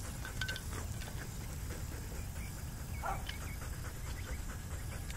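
Wind rumbling on the microphone, with a faint, brief whine from the honoring retriever about three seconds in.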